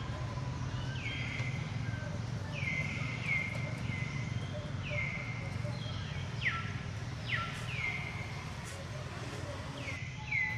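A series of short high-pitched animal calls, each sliding down in pitch and then holding briefly, roughly one a second. Two sharper, louder calls come about two-thirds of the way through.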